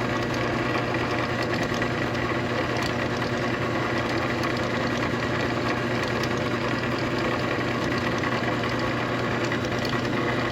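Drill press running, with a 1/4-inch machining bit taking a very thin cut across a soft-metal locomotive chassis held in a slide vise. The motor makes a steady hum that holds even throughout.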